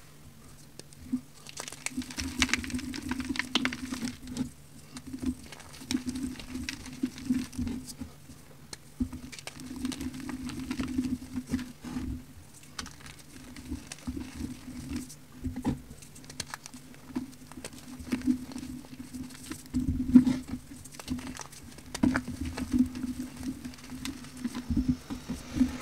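Crunchy, crumbly powder blocks being pressed and crushed by hand, breaking into fluffy powder with dense, uneven crackles and crunches and the patter of crumbs falling.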